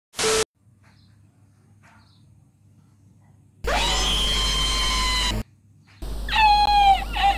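A brief burst of TV static, then a European starling calling: one steady whining note of about two seconds, and after a short break a run of falling, warbling notes.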